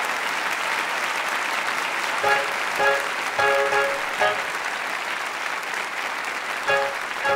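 Audience applauding. From about two seconds in, the band plays short, punchy chord hits over the applause: a quick run of four, then two more near the end.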